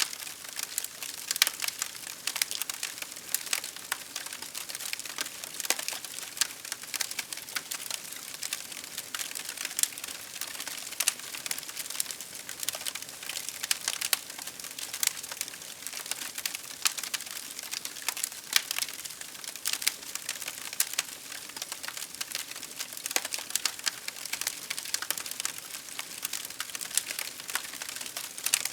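Wood fire crackling: a steady run of sharp pops and snaps over a soft hiss.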